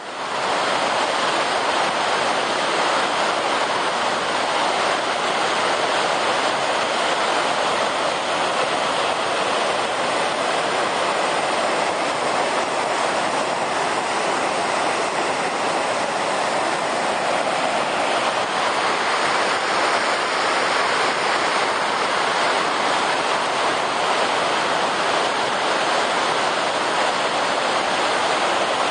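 Flood-swollen river pouring over a dam spillway and churning into whitewater below: a steady, unbroken rush of water.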